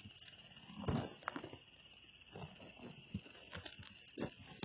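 Leather work boots shifting and scuffing on loose gravel, a few irregular crunches, the loudest about a second in. Under them runs a steady high buzz of insects.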